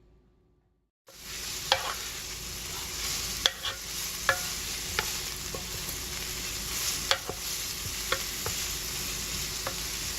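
Chopped onion and garlic sizzling in olive oil in a Ninja Cooking System pot on its highest stovetop setting. The hiss starts suddenly about a second in and holds steady, with scattered sharp clicks as the food is stirred.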